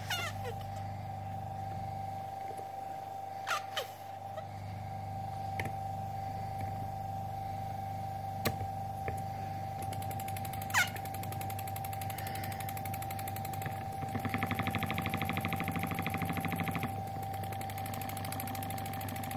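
1947 ADE Swedish model steam engine running on compressed air instead of steam, its cylinder puffing in a fast rhythm that grows louder for about three seconds past the middle, over a steady hum and a steady whistle-like tone, with a few small clicks. It runs only while finger and thumb hold shut its brass boiler's two leaking seams.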